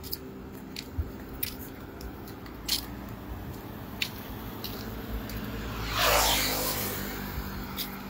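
Walking and handling noise from a phone camera carried along a roadside at night: scattered light clicks and taps over a low steady background, then a rushing swell of noise with a low rumble about six seconds in that rises and fades over roughly a second and a half.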